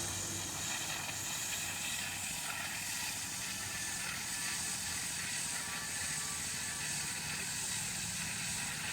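Wire saw cutting machine running steadily as its wire cuts through stone with water fed onto the cut: a constant mechanical noise with a hiss.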